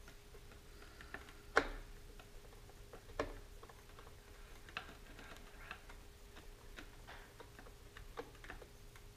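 Hand screwdriver driving a screw through a rail button into a rocket airframe tube, making scattered small clicks and ticks, with two louder clicks about one and a half and three seconds in.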